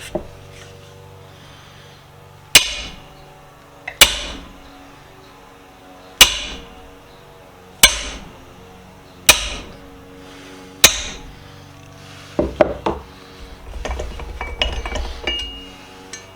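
A hammer striking a steel drift punch six hard, ringing blows, about one every one and a half to two seconds, driving a rusted pin out of a cast pipe wrench's lower jaw. Then come a few lighter clinks and knocks.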